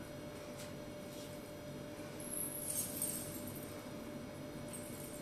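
A dancer's coin hip scarf jingling faintly a few times as she moves, over quiet room tone with a faint steady hum.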